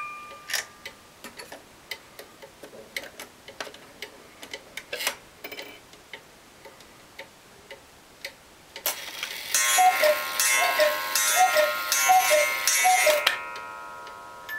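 Chalet cuckoo clock with music box: the movement ticks and clicks for several seconds, then the cuckoo calls about six times in falling two-note calls, over a loud hiss that cuts off with the last call.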